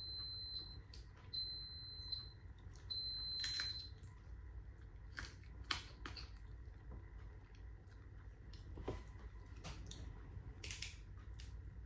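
An electronic beeper sounding a high, steady beep several times, each about a second long with short gaps, and stopping about four seconds in. Scattered clicks and knocks follow.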